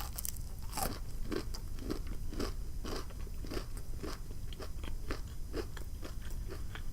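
Close-miked crunchy chewing of a bite of battered, fried butterfly shrimp, with crisp crunches about twice a second.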